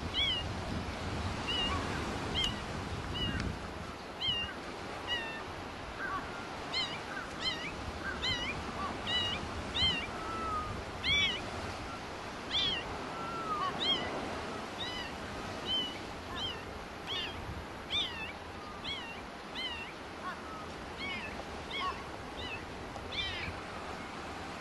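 A kitten mewing over and over: short, high, arched calls, about one to two a second, over a steady background hiss.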